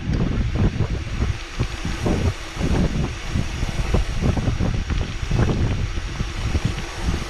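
Wind buffeting the microphone of a camera riding along on a downhill bike, with the bike's irregular rattles and knocks over a rough trail.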